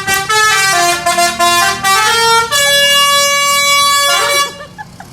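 Indonesian bus 'telolet' horn, a multi-note musical air horn, playing a quick tune of stepped notes. It then holds one long chord for about two seconds and cuts off sharply near the end.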